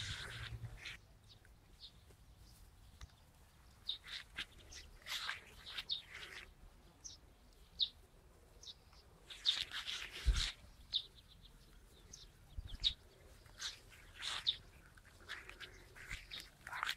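A Siberian husky foraging in a low bush: scattered faint rustles of leaves and snuffling, chewing mouth sounds as she picks berries, with a louder flurry and a thump about ten seconds in. Short bird chirps are mixed in.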